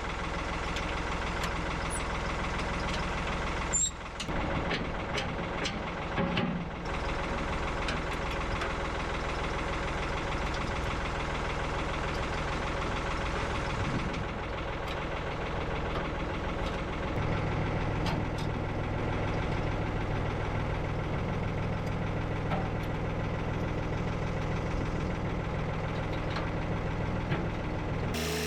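Tractor engine idling steadily, its note shifting slightly a little past halfway, with brief breaks early on.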